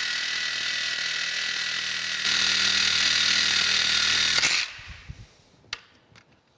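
Sawzall reciprocating saw cutting through a metal valve rod, running steadily and getting louder about two seconds in. It stops about four and a half seconds in as the cut goes through. A few light knocks follow.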